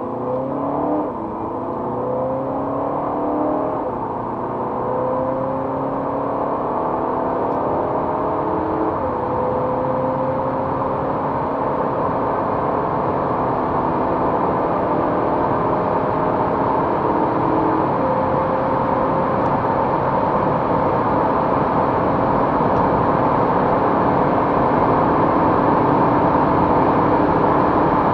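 VW Passat B8's 2.0 BiTDI twin-turbo four-cylinder diesel under hard acceleration, heard from inside the cabin: the engine note climbs in pitch through each gear and steps down at every upshift, the clearest about 9 and 18 seconds in. Beneath it a rush of wind and tyre noise grows steadily louder with speed.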